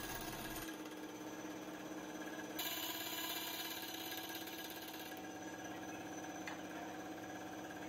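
Benchtop band saw running steadily, its blade cutting through aluminium angle with a brighter hiss from about two and a half to five seconds in.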